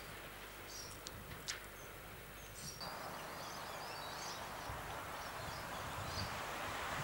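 Birds chirping over faint outdoor background noise, with two short clicks about a second in. After an abrupt change about three seconds in, a steady noise slowly grows louder as a diesel locomotive approaches in the distance.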